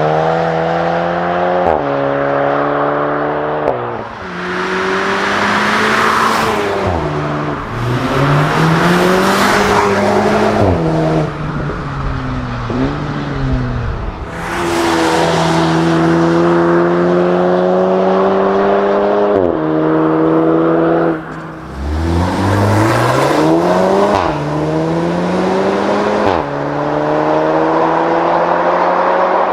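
Volkswagen 2.0 TSI turbocharged four-cylinder engine and exhaust under hard acceleration. The engine note climbs through the revs and drops sharply at each upshift, several times over.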